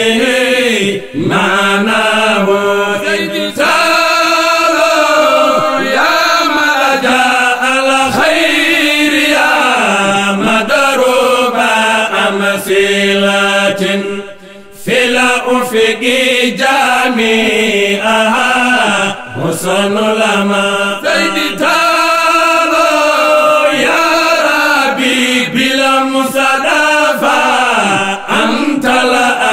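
Men's voices chanting a religious praise song in melismatic, sustained lines over a steady low drone. The singing breaks off briefly about halfway, then resumes.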